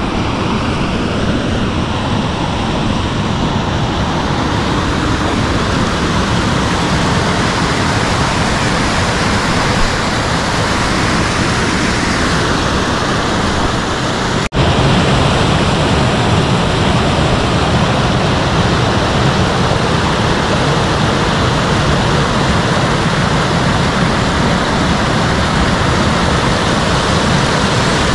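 River rapids: white water rushing steadily over and between boulders. There is a sudden break about halfway through, after which the rushing is a little louder.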